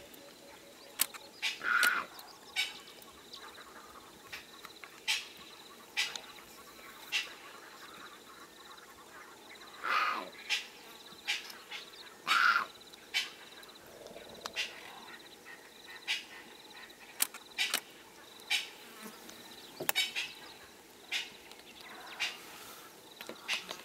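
Leopard cub calling again and again with short high mews that fall in pitch, a few louder than the rest, spaced several seconds apart: the contact call of a cub separated from its mother.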